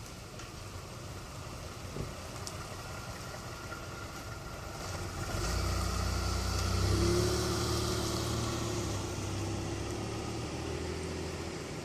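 A hard-starting Buick's engine firing up about five seconds in: it catches, revs up briefly, then eases back and settles to a steady idle.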